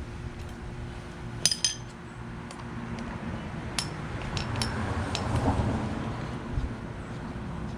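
Metal parts and tools clinking against each other during hands-on work, with two sharp ringing clinks about a second and a half in, then a few lighter ticks.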